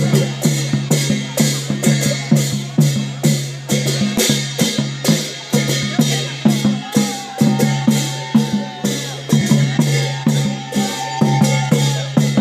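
Drum-led music with a fast, steady beat of about three to four strokes a second. A held higher tone comes in and out over it from about halfway through.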